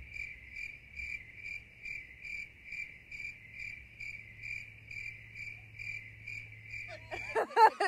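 A cricket chirping steadily, about two and a half chirps a second, over a faint low hum; both stop just before the end.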